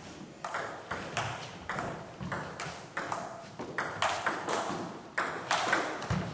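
Table tennis rally: the celluloid ball clicking sharply off the bats and table about twice a second, each hit ringing in the echo of a large sports hall. A dull thump comes near the end.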